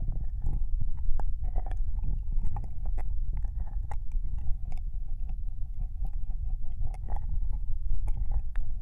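Ear-licking ASMR mouth sounds close to a binaural microphone: wet licks, tongue clicks and smacks following one another irregularly, over a steady low rumble.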